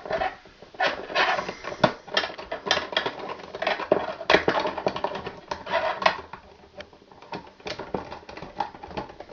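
Irregular clicking and scraping of stripped electrical wires and an Ideal Twister twist-on wire nut being handled and screwed on to join the white wires into a pigtail.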